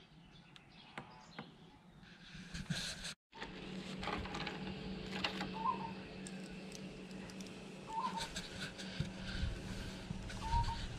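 Kings 75-litre dual-zone portable fridge being switched on: a few light clicks, then, about three seconds in, a steady low hum as its compressor runs. Birds give three short chirps.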